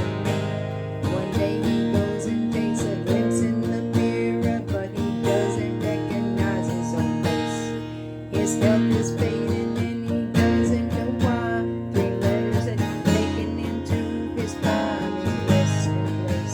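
Music: an instrumental passage of a song led by strummed acoustic guitar over sustained bass notes.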